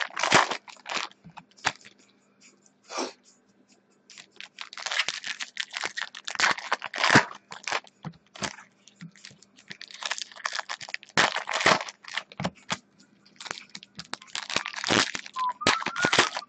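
Foil trading-card pack wrappers crinkling and crackling as they are handled, in irregular bursts, with a lull about two to four seconds in.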